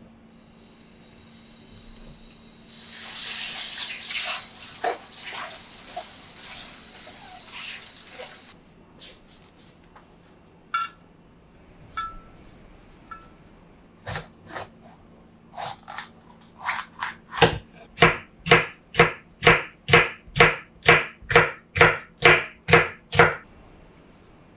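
A kitchen tap runs into a stainless steel sink for about six seconds while greens are rinsed. After a few light clicks, a knife chops steadily on a wooden cutting board near the end, sharp knocks at about two and a half a second.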